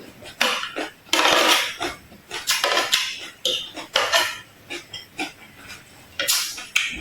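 Close-miked eating sounds: about ten short, crisp crunches and clatters, bites and chewing mixed with utensils knocking against dishes.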